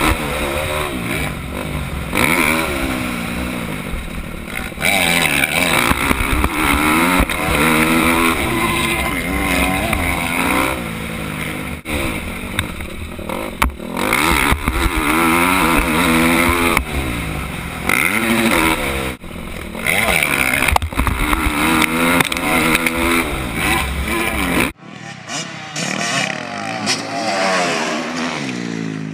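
Dirt bike engine revving hard and falling off again and again as the rider accelerates and shifts, heard close from a helmet camera with wind rumble on the microphone. About 25 seconds in it changes to a Yamaha dirt bike revving, heard from beside the track.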